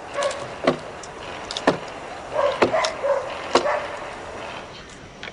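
A hand tool chopping into a wooden log as a dugout canoe is hollowed out: a handful of sharp, unevenly spaced knocks. Short whining calls come early on and again in the middle.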